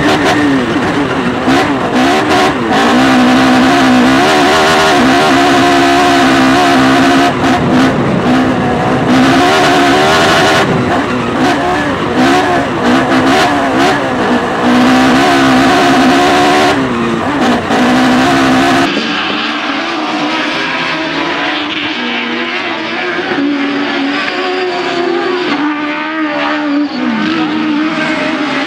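Onboard sound of an autocross buggy's engine racing on a dirt track, revs rising and falling continuously as the driver accelerates and lifts. About two-thirds of the way in, the sound switches to a trackside recording of several buggies' engines racing on the dirt, thinner and less bassy.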